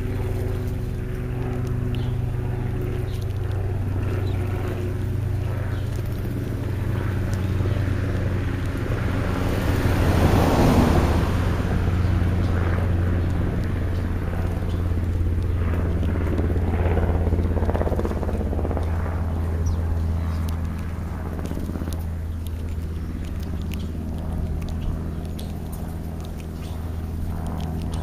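A steady low hum, with a car passing on the street: its noise swells to a peak about ten seconds in, then fades. Scattered faint ticks and rustles follow.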